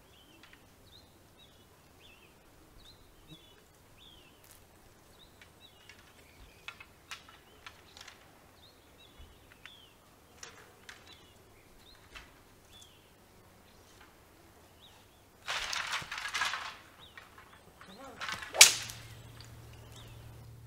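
Small birds chirping repeatedly in a garden, with scattered sharp clicks. Near the end comes a loud swish lasting about a second, then a single sharp crack, the loudest sound.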